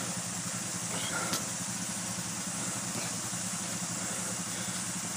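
Trail motorbike engine idling steadily.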